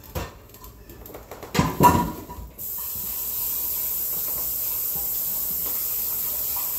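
A couple of knocks and clatters, the loudest about two seconds in, then a steady spray hiss from an aerosol can that starts sharply, holds evenly for about five seconds and runs on to the end.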